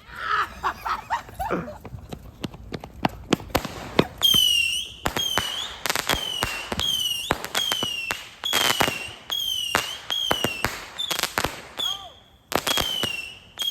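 A lit consumer firework going off. It starts with a few seconds of crackling pops, then from about four seconds in fires a rapid series of short whistles that each fall in pitch, about one or two a second, with sharp cracks. There is a brief pause near the end before it starts again.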